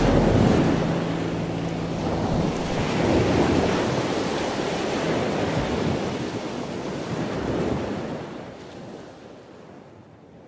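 Rushing sound of surf that swells and falls in slow surges, fading out over the last couple of seconds.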